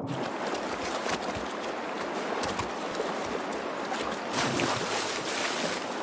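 Shallow stream water rushing and splashing as a black bear cub lunges at salmon, with a louder burst of splashing about four and a half seconds in; the cub misses its catch.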